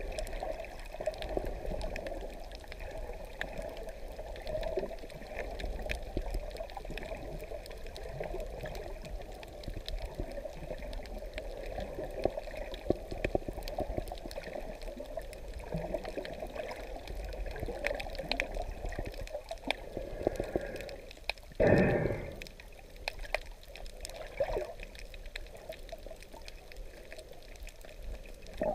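Underwater recording through an action camera's housing: muffled, steady water movement sprinkled with faint clicks. About three-quarters of the way through there is a brief, louder rush of water.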